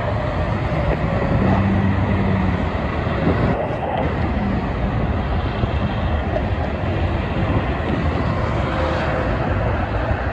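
Steady roar of multi-lane highway traffic: tyres and engines of passing cars and diesel tractor-trailers, with a low truck engine drone underneath.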